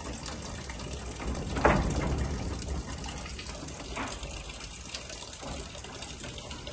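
A steady rushing noise with two sharp knocks, the louder about one and a half seconds in and a fainter one about four seconds in.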